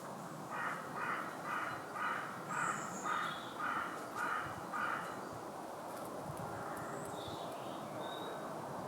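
A bird calling in a quick series of about nine short calls, roughly two a second, which stops about five seconds in; a couple of faint high chirps follow.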